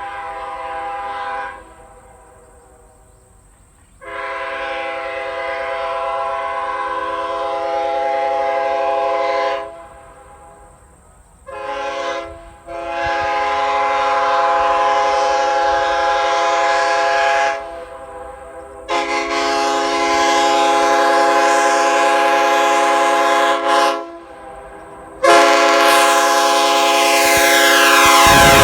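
Nathan Airchime K5HL five-chime locomotive air horn, with a sandcast two-piece 1L bell, blowing its chord in a series of blasts. The tail of one blast is followed by a long blast of about five seconds, a quick short toot, two more long blasts, and a last blast still sounding at the end.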